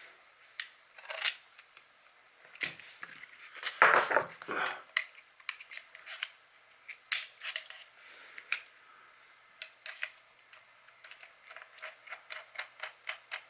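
Small metal clicks and knocks of a tool working the retention screw out of the back of a Hatsan Sortie air rifle, with a louder clatter about four seconds in and a quick run of small ticks near the end.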